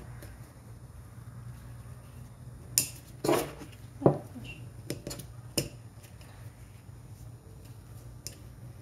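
Small clicks and scrapes from gloved hands and a metal pick working a new O-ring onto a plastic oil filter housing cap. A few sharp clicks and a brief rasp come between about three and six seconds in.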